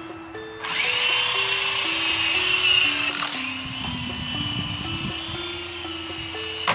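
Small electric rotor motors of a toy RC helicopter drone whining, starting suddenly about half a second in and wavering in pitch as the throttle changes, with a short click near the end. A background music tune plays throughout.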